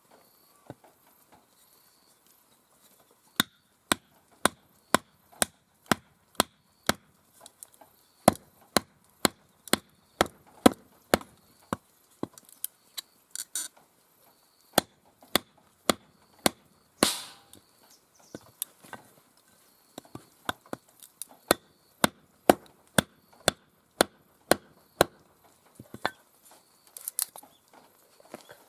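Firewood being chopped for a campfire: sharp strikes, about two a second, starting a few seconds in, with one longer splitting crack near the middle.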